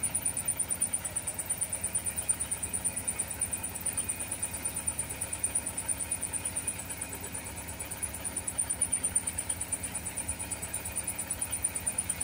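Wheel loader's diesel engine running steadily with a fast, even throb while its raised bucket tips sand and gravel into a mini dump truck.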